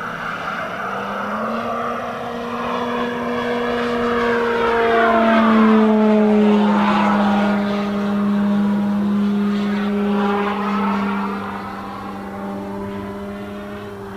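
Electric RC P-47 flying past overhead: the whirr of its Rimfire electric motor and 24x12 propeller mixed with the simulated Pratt & Whitney R-2800 radial-engine drone from its onboard RealSound speaker. It swells to its loudest about six seconds in, drops in pitch as it passes, then fades.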